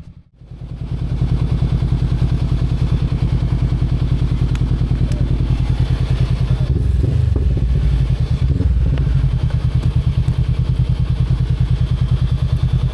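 Motorcycle engine running steadily with rapid, even firing pulses, with some rattling in the middle.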